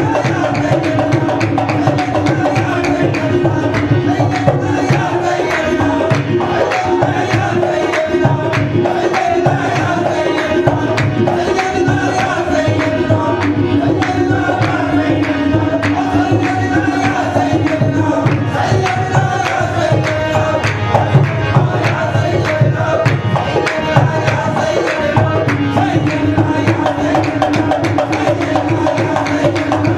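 Qawwali music: harmoniums playing a sustained, wavering melody over a fast, steady hand-drum rhythm.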